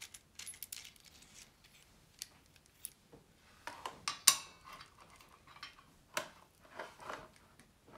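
Light clicks and small metallic clinks as a soldering iron and its coiled metal stand are handled on a workbench, with the loudest clink a little past the middle.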